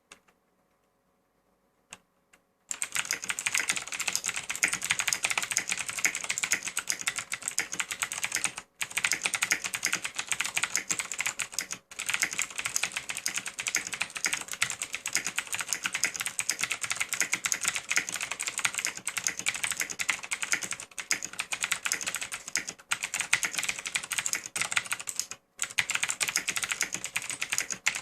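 Fast continuous typing on a CM Storm Quickfire Ultimate mechanical keyboard with clicky Cherry MX Blue switches, a dense run of rapid key clicks. It starts about three seconds in after a near-silent pause with a couple of single clicks, and breaks off briefly three times.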